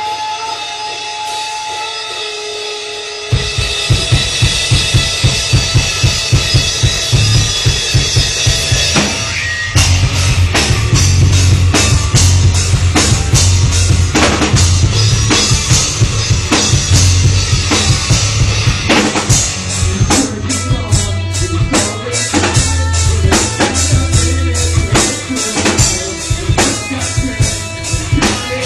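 Live rock band playing loud. Sustained guitar tones at first, then the drums come in with a fast, steady kick-drum beat about three seconds in, and the full band crashes in with drums and distorted guitars near ten seconds.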